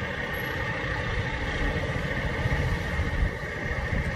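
A fire engine's diesel engine idling steadily: a low rumble with a constant higher whine over it.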